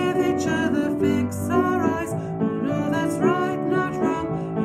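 A woman singing a song solo while accompanying herself on the piano.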